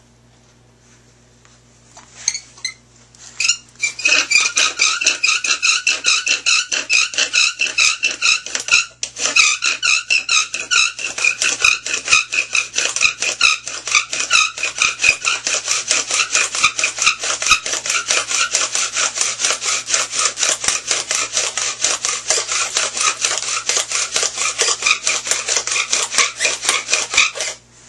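Bow drill worked hard: a wooden spindle spun back and forth in a fireboard by a bow strung with zip ties, squeaking on every stroke. A few tentative strokes lead into a rapid, even run of squeaks that stops abruptly just before the end.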